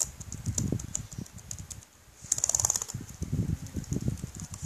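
Keys of an Acer Aspire One netbook's replacement keyboard being pressed one after another, clicking and tapping in an uneven run with a short pause about two seconds in, as each key is tested in turn.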